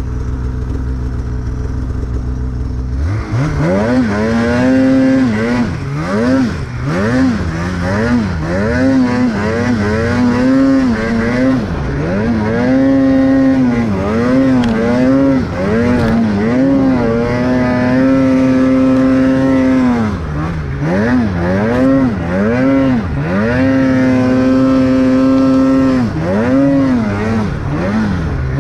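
Snowmobile engine idling for about three seconds, then revving up and down over and over as the sled is ridden through deep snow, with the throttle held open for a few seconds at a time between the rises and falls.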